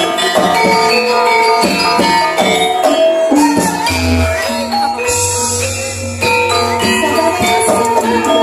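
Gamelan ensemble playing kuda lumping (ebeg) dance accompaniment, with many ringing metallophone tones overlapping. A low booming tone sounds briefly about four seconds in and again for about a second from five seconds.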